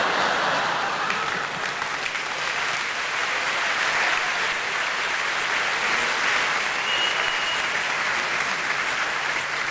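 Theatre audience applauding, a steady sustained clapping of many hands.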